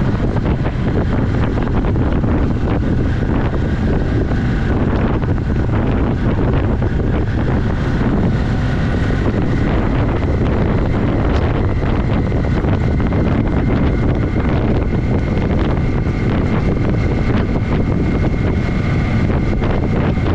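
Steady wind rush over the microphone of a moving motorcycle, with the 1982 Yamaha XS400 Maxim's air-cooled parallel-twin engine running underneath.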